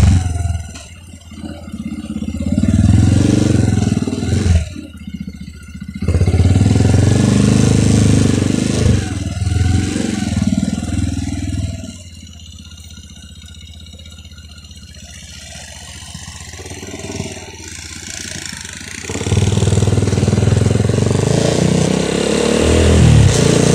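Motorcycle engine and road noise heard from the bike itself. The engine rises and falls in pitch twice in the first half, drops to a quieter idle for several seconds about halfway through, then gets louder again near the end as the bike moves off.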